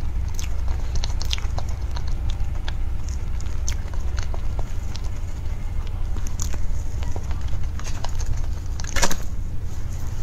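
Close-up eating of a soft mousse cake: small clicks of a metal knife against a plate and wet chewing, over a steady low hum. About nine seconds in there is a louder short scrape or clatter.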